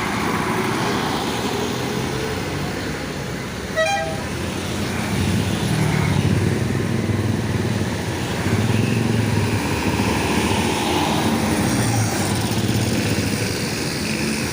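Road traffic with a short, single horn toot about four seconds in. From about five seconds on, the low engine rumble of a large bus grows louder and stays close.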